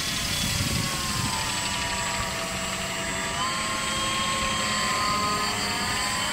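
Gyrocopter in flight overhead, its engine and propeller droning steadily; the pitch eases down slightly, then steps up about three and a half seconds in.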